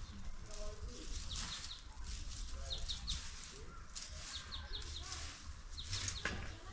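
Dry fallen leaves being swept and gathered off paving, a rustling scratch in irregular strokes. Birds chirp in quick runs of three now and then.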